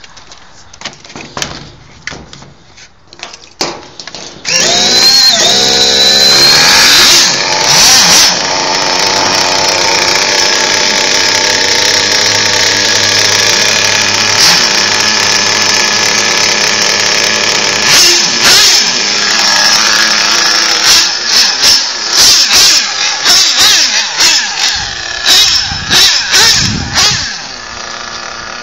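Small nitro glow engine of a Kyosho FW-05RR radio-controlled car starting about four seconds in, its pitch sweeping up, then running loud and steady at a high buzzing idle. From about two-thirds of the way through, the throttle is blipped again and again in short revs. Before the start there are a few light clicks and knocks.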